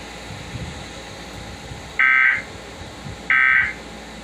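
Emergency Alert System end-of-message data tones: two short, loud, buzzy digital screeches about a second apart, starting about halfway through. This is the SAME 'NNNN' code burst that closes an alert broadcast.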